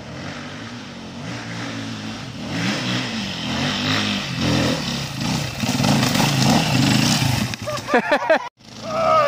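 Vehicle engine running, its revs rising and falling. A brief loud shout cuts in about eight seconds in.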